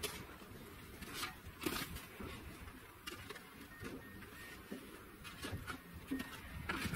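Snow shovel scraping and crunching into packed roof snow, several separate strokes heard from a distance.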